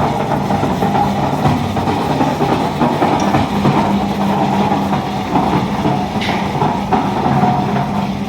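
1-bag concrete mixer running, its 5 hp three-phase electric motor humming steadily under a continuous rattle from the turning drum.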